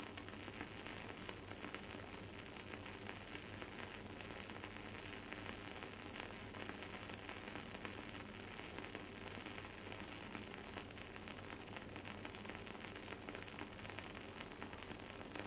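Wooden candle wick crackling as it burns: a faint, steady, dense run of tiny pops and sizzles.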